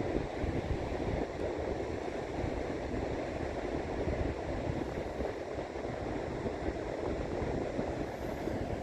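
Wind buffeting the microphone: a steady, unbroken rumbling noise with a fluttering low end.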